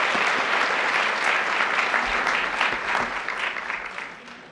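Large audience applauding, the clapping dying away near the end.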